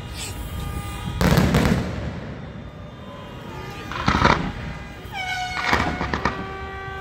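Aerial fireworks shells bursting overhead, three loud booms about a second, four seconds and five and a half seconds in. Between and under the bursts, sustained tones sound, several held together, with a brief falling glide into them near the five-second mark.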